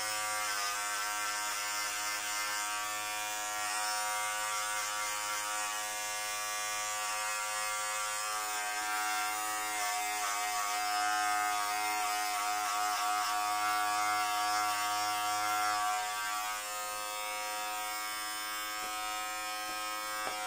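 Corded electric hair clipper running with a steady buzz as it is worked through short hair on the back of the head, its tone changing slightly about three-quarters of the way through.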